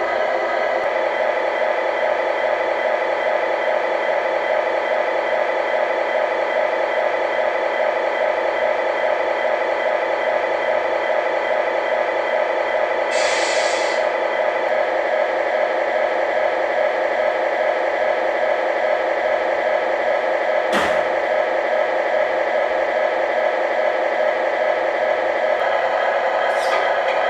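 Diesel truck engine idle sound, a steady hum with little bass, typical of an RC truck's sound unit. A brief hiss of air comes about halfway through, and a sharp click a little later.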